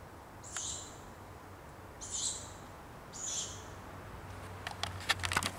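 Young tawny owl giving three short, hoarse, hissing calls, the food-begging call of a fledgling, spaced a second or more apart. Near the end a rapid run of louder clicks and scrapes sets in.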